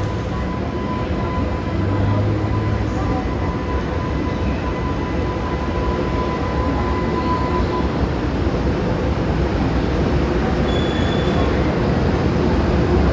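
JR Freight EH500 electric locomotive hauling container wagons, moving off slowly after a brief stop: a steady rumble that slowly grows louder. A thin steady tone fades out about eight seconds in.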